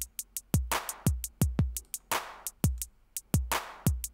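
Browser drum machine looping a beat of sampled drums: deep kick-drum hits that fall in pitch, a snare with a long noisy tail, and a quick run of thin hi-hat ticks.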